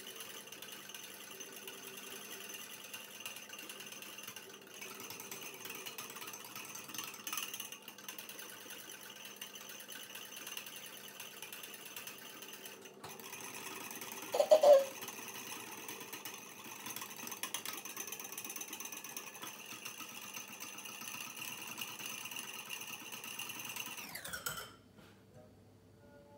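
Wire whisk beaten rapidly in a small bowl, a fast steady clatter, whipping instant coffee, sugar and water into dalgona foam that is just starting to thicken. A short louder sound about halfway through; the whisking stops shortly before the end.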